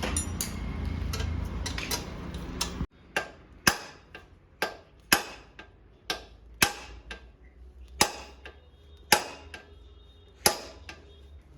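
A steady background rumble that cuts off suddenly about three seconds in, then a series of about ten sharp hammer blows on metal, unevenly spaced about a second apart, each ringing briefly. This fits work on a motorcycle's front wheel at a tyre shop.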